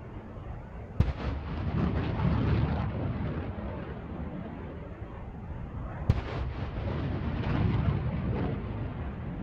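Rockets launching from an M270 MLRS launcher, two of them about five seconds apart: each a sharp crack followed by the rushing noise of the rocket motor that swells and then fades over a few seconds.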